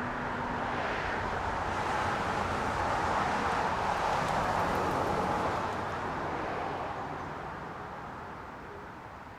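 Car traffic on a busy main road: tyre and engine noise of passing cars swelling to a peak about halfway through, then fading away toward the end.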